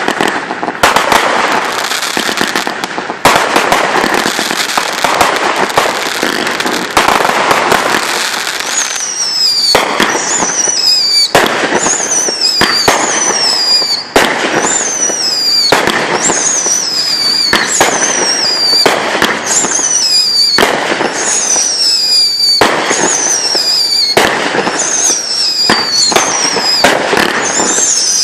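Consumer fireworks going off in quick succession. A dense barrage of bangs and crackling comes first; from about a third of the way in it turns into a steady string of shots, roughly one a second, each with a high whistle that falls in pitch.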